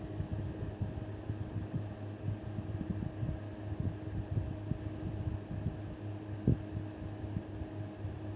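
Steady low mechanical hum with irregular soft low bumps and one sharper knock about six and a half seconds in.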